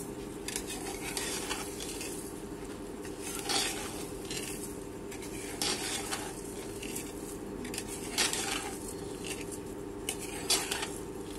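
A metal spoon scraping and knocking inside a pressure cooker as rice is spooned in and stirred into the potato masala, in short strokes a second or two apart, over a steady low hum.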